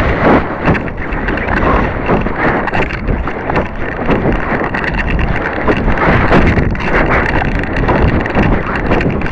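Wind rushing and buffeting over the microphone of a small keyring camera riding on a model rocket in flight, a loud, steady rush with rapid flutters.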